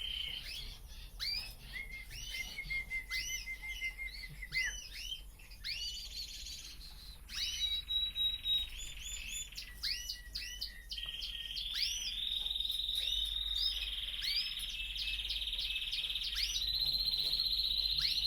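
Canary song: quick rising-and-falling chirps repeated over and over, broken by fast trills. About two-thirds of the way in it settles into long, steady rolling trills.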